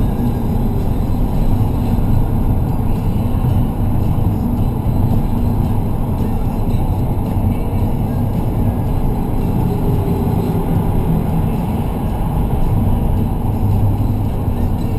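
Car running, a steady low rumble of engine and road noise.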